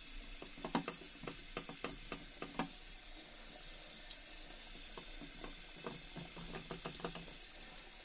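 Water from a tap running steadily into a bathroom sink, with many short wet squishes and crackles as a soaped natural luffa sponge is squeezed and rubbed in the hands under the stream.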